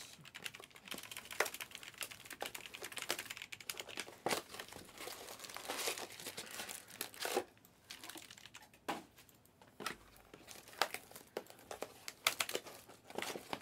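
Scattered light clicks and plastic crinkling: foil-wrapped trading card packs being handled, mixed with clicks from a computer keyboard.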